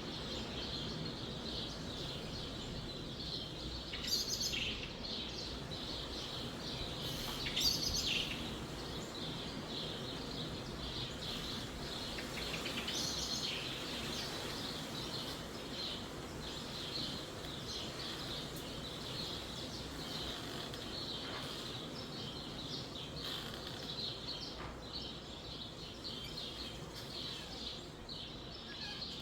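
Small birds chirping almost without pause, with louder flurries a few times, over a steady rush of wind through the trees.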